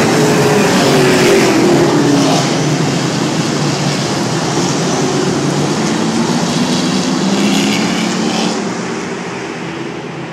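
A field of Sportsman-class stock cars racing past, their engines' pitch dropping as the cars go by and rising again as they accelerate, then fading near the end as the pack moves away.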